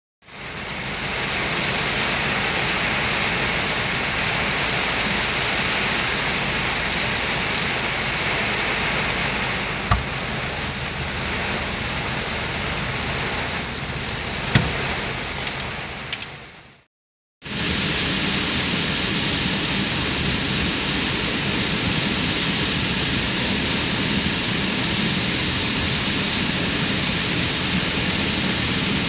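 Heavy rain drumming on a car, heard from inside the cabin, with a couple of sharp knocks; it fades out. After a break, a swollen river pours steadily over a weir.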